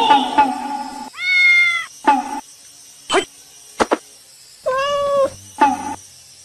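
Domestic cat meowing: two long, drawn-out calls, the first about a second in and a shorter one about three and a half seconds later. A few short clicks fall between them.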